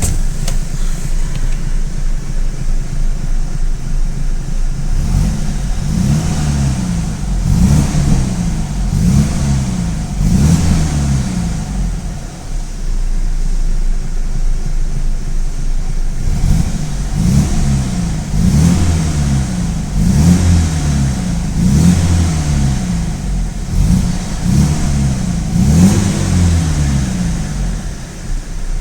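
BMW 320i E90's N46 four-cylinder engine running and being revved in quick repeated blips, about one a second, in two runs with a steadier stretch between. This engine rattles and misfires when warm despite a new timing chain, guides and tensioner; the owner suspects the VANOS unit or its solenoid.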